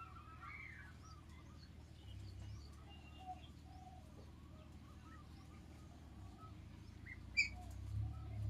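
Ducklings peeping: many short, soft chirps throughout, with one sharper, louder high peep about seven seconds in, over a low rumble.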